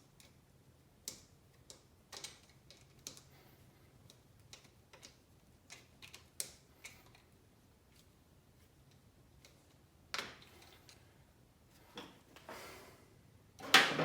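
Hand-tool work on hose clamps and metal engine parts: scattered light, irregular clicks and clinks. There are a few longer, louder scrapes about ten seconds in and near the end.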